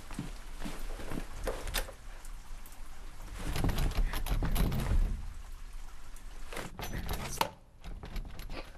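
A steady rain-like hiss with scattered clicks and knocks throughout, a louder low rumble from about three and a half to five seconds in, and the hiss dropping away briefly near the end.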